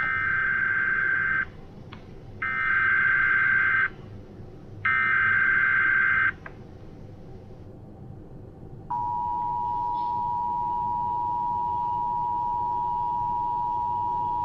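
Emergency Alert System alert opening: three buzzing digital header data bursts, each about a second and a half long with short gaps between them. About nine seconds in, the steady two-tone EAS attention signal starts.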